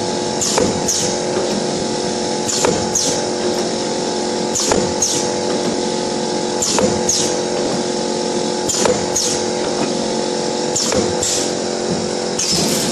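YX400 wire-cut cookie depositing machine running: a steady motor and gear hum, with a double mechanical stroke about every two seconds as each row of dough is deposited and cut off.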